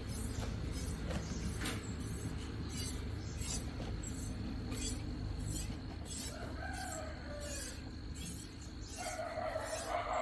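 Rooster crowing twice over a steady low rumble: a shorter, falling crow about six seconds in, then a longer, louder crow near the end.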